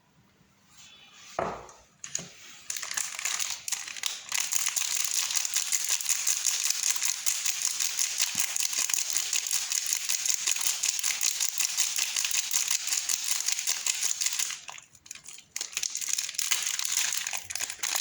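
Soap bar's wrapper being unwrapped by hand, a dense crinkling and crackling in two long stretches with a short break near the end. A single soft thump comes first.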